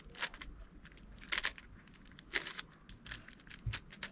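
Plastic 8x8 Rubik's cube being turned by hand: irregular clicks and scrapes of its layers sliding and snapping into place, a few sharp ones standing out.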